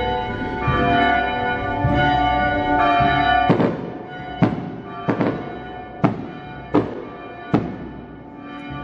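Church bells ringing: a chord of long, overlapping bell tones, then six single strokes a little under a second apart, each left to ring on and die away.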